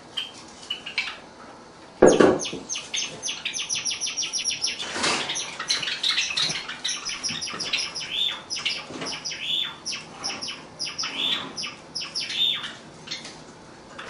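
Male Java sparrow singing: a sharp click about two seconds in, then a long introductory run of rapid repeated 'pyo-pyo' notes, about six a second, followed by a louder, varied warble of high notes that stops near the end.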